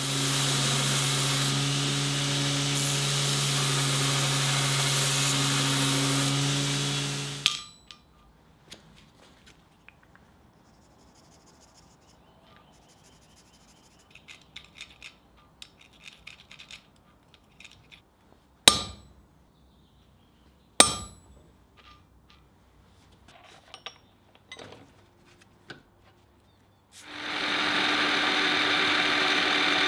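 A workshop machine motor runs steadily for about seven seconds and stops. After some small clicks, two sharp ringing metal strikes come about two seconds apart, and near the end a drill press starts up and runs steadily.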